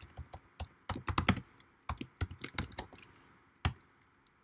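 Computer keyboard typing: irregular runs of keystrokes in short bursts, ending with a single key press a little before the end.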